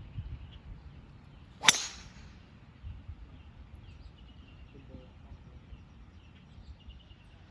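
Golf club striking a ball on a full swing: one sharp crack about a second and a half in, ringing briefly.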